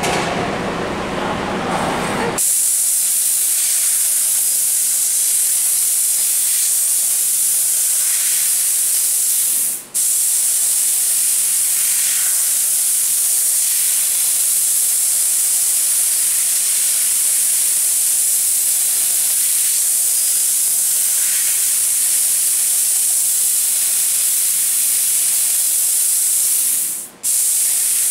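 Bodor T6 fiber laser tube cutter cutting carbon steel angle: after a short stretch of lower machine running, a loud, steady, high hiss of the assist-gas jet through the cutting head starts about two and a half seconds in. The hiss cuts out for a moment twice, about ten seconds in and again just before the end, as the cut stops and restarts.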